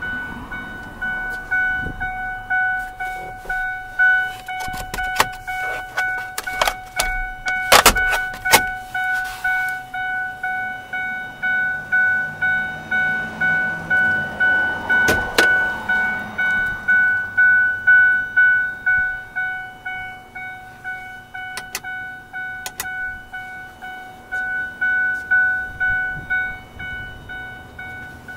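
Ford F-250 cab warning chime, a pitched ding repeating a little under twice a second while the driver's door stands open, dying away near the end. A few sharp clicks and knocks of the cab's controls and panels being handled sound over it.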